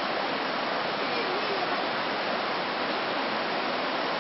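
Rushing water of a hill stream, a steady, even rush.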